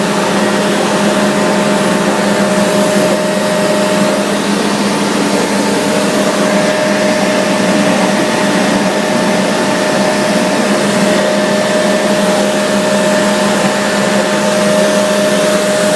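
Industrial machinery running steadily: a loud, even mechanical rush with a constant hum and a higher steady whine. The whine drops out for a couple of seconds about four seconds in, then returns.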